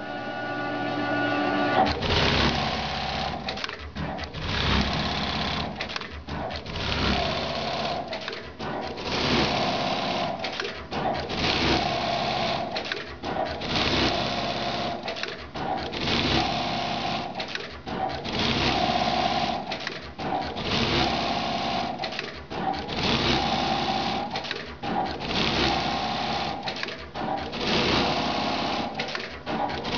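A Brother BAS-342GXL programmable pattern sewing machine stitching automatically. It opens with a steady whine for about two seconds, then sews in a repeating run of stitching bursts about a second or so long, each broken off by a brief pause.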